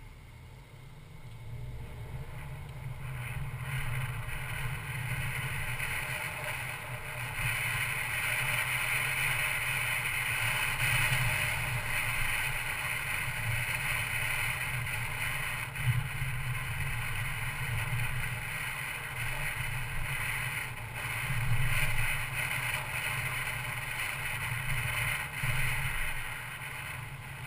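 2012 Mercedes-Benz C250 Coupe driving at town speed: steady road and wind noise over a low rumble, building up over the first few seconds as the car gets going, with a couple of brief louder swells later on.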